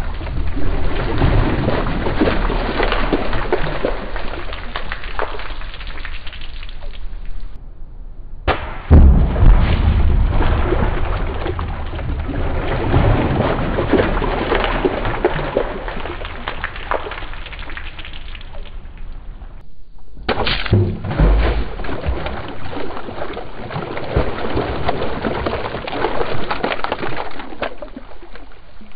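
Splashes of something hitting water, played back in slow motion so they come out deep and drawn out. One splash is already sounding, then two more each begin with a heavy low thud, about 8½ and 20 seconds in, after short breaks.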